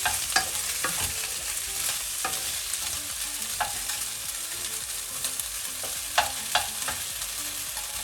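Chicken wings sizzling in hot oil in a frying pan, with the scrape and knock of a utensil stirring and turning them every so often, a few sharper knocks near the end.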